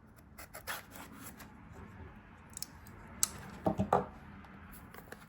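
A sealed trading-card hobby box being opened by hand: short, irregular scrapes and clicks of cardboard and plastic wrapping, loudest a little past three seconds in and again around four seconds.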